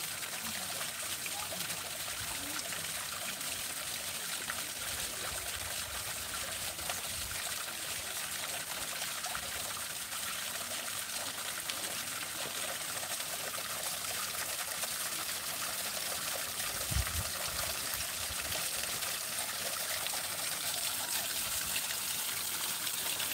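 Water trickling steadily down a rock wall into a shallow pool at its base. A brief low thump comes about 17 seconds in.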